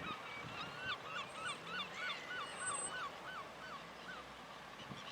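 A bird giving a run of about a dozen evenly spaced calls, roughly three a second, starting about a second in and stopping a little after four seconds.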